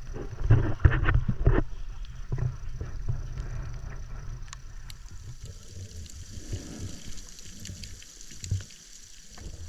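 Sea water splashing and sloshing close to the microphone, over a steady low rumble. A cluster of louder splashes comes in the first second or so, then it settles to lighter sloshing.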